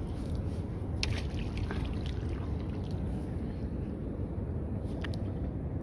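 Steady low rumble of wind and water around a small wooden boat being poled along, with a few faint clicks.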